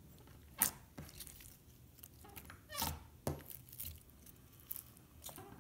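Fingers kneading and squeezing homemade pink glue-and-borax slime, making soft squishing sounds with a few short, sharp clicks, the loudest about three seconds in.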